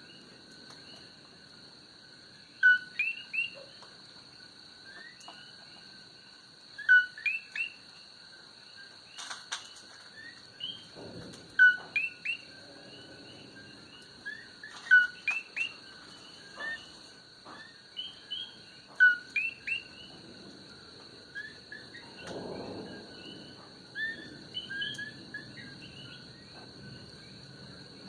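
Coqui frogs calling, repeated two-note "co-qui" chirps that rise in pitch, coming in clusters every few seconds over a steady high insect hum. Twice a faint low rumble sounds in the background.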